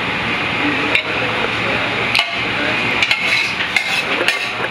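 Metal utensil clinking and scraping against a stainless steel pan while serving pasta: a couple of single clinks, then a quick run of clinks in the second half, over a steady background noise.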